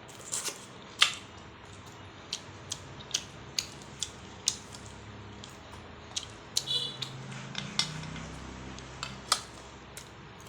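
Eating utensils clicking and tapping against bowls and plates at a meal: short sharp clinks at irregular intervals, one or two a second.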